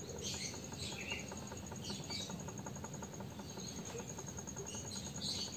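Faint light clicking from an old Honda Vario scooter's crankshaft being rocked back and forth by hand with the drive pulley off: small play in the connecting rod, which the mechanic takes for a worn con-rod. Birds chirp in the background.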